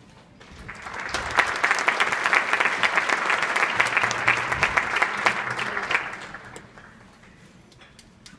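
Audience applauding: the clapping swells up within the first second, holds steady for about five seconds, then dies away.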